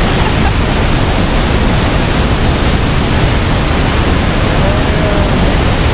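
Large waterfall, a loud steady rush of falling water, with a faint short whistled note about five seconds in.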